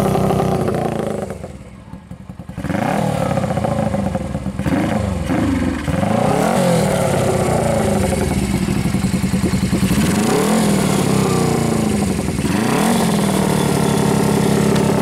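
Honda Benly CB125T's air-cooled 125 cc engine running, blipped on the throttle about five times so the revs rise and fall back to idle between, with a brief dip in level soon after the start and a steady idle near the end.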